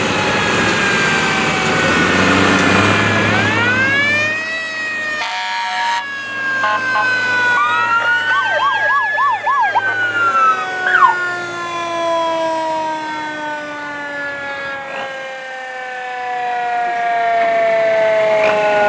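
Siren on a US Army 6x6 rescue fire truck sounding: rising and falling wails, a fast warble near the middle, then a long tone falling slowly in pitch as it winds down. A truck engine runs beneath it for the first few seconds.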